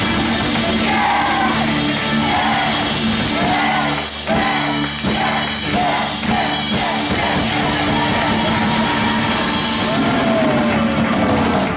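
Live rock band playing, with a woman singing lead over guitars and drums; near the end she holds one long note that slides downward.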